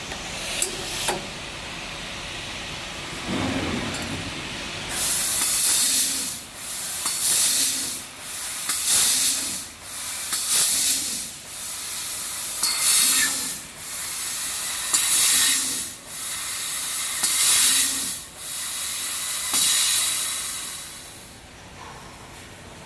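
Fiber laser tube cutter cutting small square stainless steel tube: a series of hissing bursts of assist gas and cutting, each about a second long, with short pauses between as the machine moves from cut to cut. It starts a few seconds in and fades out near the end.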